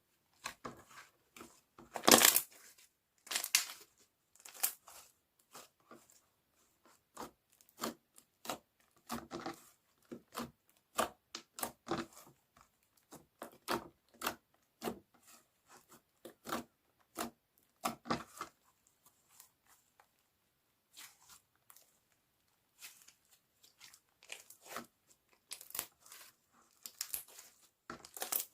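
Slime being handled close to the microphone: squeezed, pressed and pulled, giving irregular short crackles and pops with brief pauses between them.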